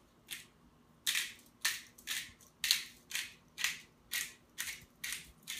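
Hand-held black pepper grinder being twisted, grinding peppercorns with a short gritty crunch about twice a second, starting about a second in.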